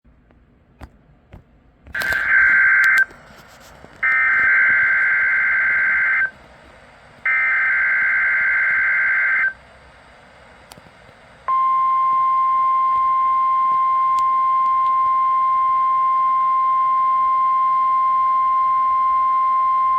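NOAA Weather Radio Required Weekly Test played through a Honeywell RN507W weather radio: three bursts of screechy SAME digital header data, then the steady 1050 Hz warning alarm tone held for about nine seconds.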